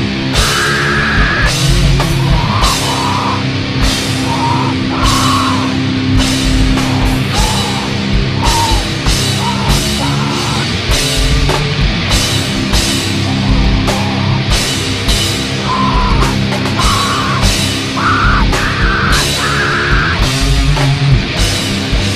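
Live rock band playing loud and heavy: a drum kit with cymbal hits under electric guitar and bass. Short high held notes come and go above the band.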